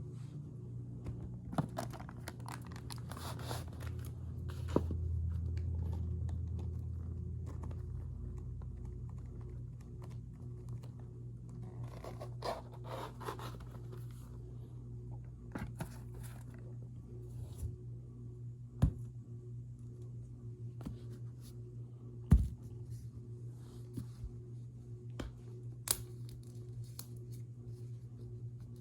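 Powder being squeezed and rubbed close to the microphone, giving soft crunchy, crackly squeaks and scrapes. A few sharp clicks stand out.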